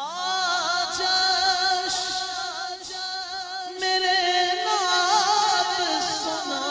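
A solo voice singing a naat in a long, ornamented held phrase, its pitch swooping up at the start and then bending and wavering, growing louder about four seconds in.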